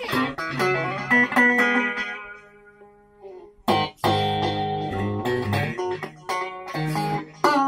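Customized Sterling SUB Silo3 Strat-style electric guitar played through an amplifier: picked notes and chords ringing out, thinning to a near pause about 3 seconds in, then a strong chord and more picked phrases.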